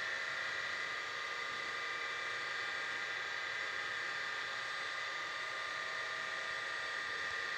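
FANUC Robodrill T21iD vertical machining centre running, a steady high whine over an even hiss.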